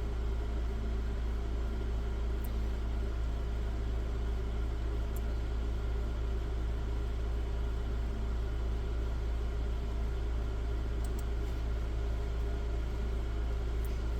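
Steady low hum from running machinery, with a constant hiss over it and a few faint ticks.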